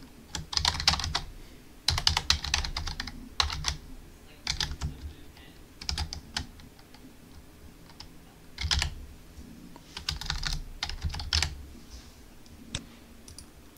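Typing on a computer keyboard: quick runs of keystrokes in short bursts with pauses between them.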